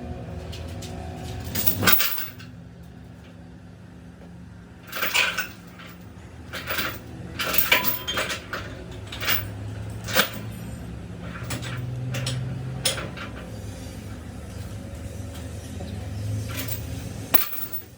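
Metal tools clanking and knocking at irregular intervals, with several sharp strikes, over a steady low engine hum that swells briefly twice.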